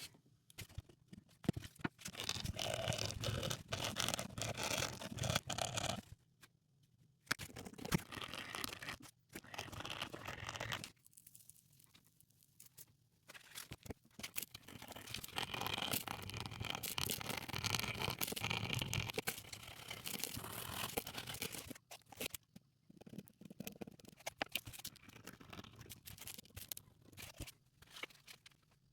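Scrubbing on a bronze Roman coin during cleaning, a dense rasping scratch in stretches of several seconds with short pauses between.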